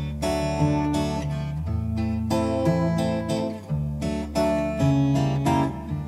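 Background music: acoustic guitar picked and strummed, one note or chord after another at an even pace.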